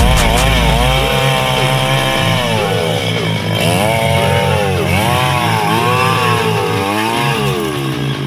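Stihl MS 382 two-stroke chainsaw running at high throttle while crosscutting a log. Its pitch dips and recovers several times as the chain bites into the wood and bogs under load.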